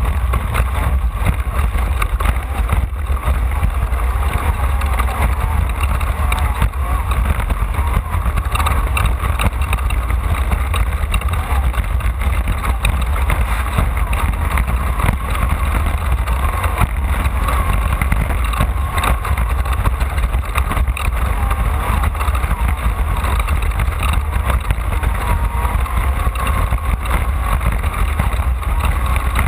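Off-road race car under way, heard from a camera riding in it: a steady engine note over a heavy, continuous low rumble.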